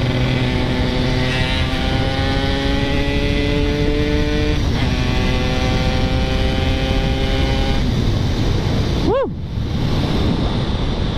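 Yamaha RX-King's 135 cc two-stroke single-cylinder engine under way, accelerating with its pitch climbing steadily, a gear change about four and a half seconds in, then climbing again. Near the end the note falls away, with one quick rising-and-falling blip. The engine has just been rebuilt after seizing and is still being run in.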